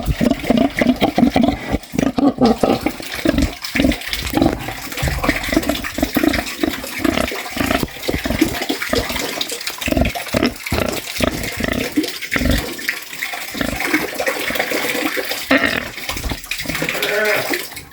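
Domestic pig grunting and snuffling, a dense run of short grunts several a second, mixed with a wet, watery noise.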